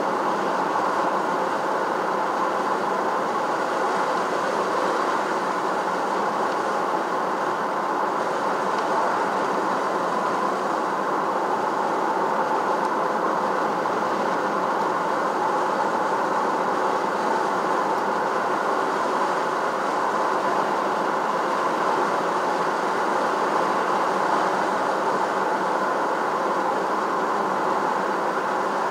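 Steady road noise of a vehicle being driven: tyres and running gear making an even, unchanging rush of sound.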